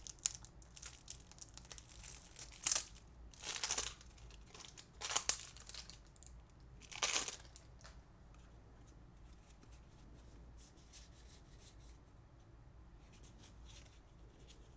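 Plastic shrink-wrap being torn and crinkled off a deck of game cards: a series of short rips over the first seven seconds, the loudest about five seconds in, then faint rustling as the cards are handled.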